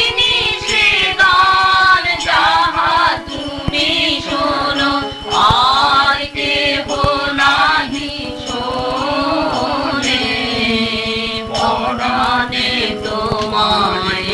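Devotional kirtan singing: voices carry a wavering, ornamented melody over a steady held drone.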